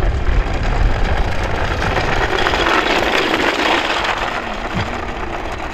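Homemade wooden go-kart on wooden wheels rolling down a gravel road: a rough, crunching rumble that grows loudest as it passes close, about three to four seconds in, then eases off.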